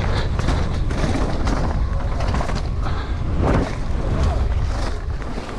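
Downhill mountain bike ridden fast down a dirt trail, heard from a camera on the rider: wind rushing over the microphone, tyres on loose dirt, and the bike rattling and clattering over bumps.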